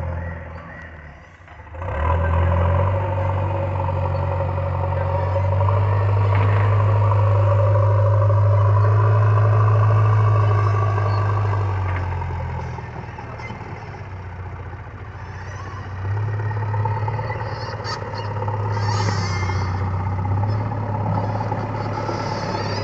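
JCB backhoe loader's diesel engine running hard for several seconds, easing back toward idle around the middle, then picking up again.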